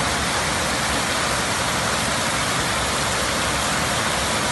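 Heavy rain falling, a steady, even hiss of downpour.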